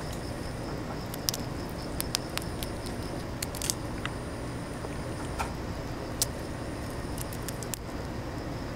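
Grilled shrimp's shell crackling and snapping as it is pulled apart by hand and its head twisted off, close to the microphone. The sound is a scattering of sharp crackles.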